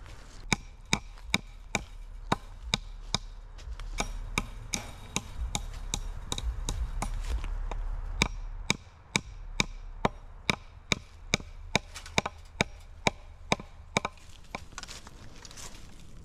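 Hammer blows on a wooden fence post, driving staples to fasten the fence wire: a steady series of sharp strikes, about two to three a second.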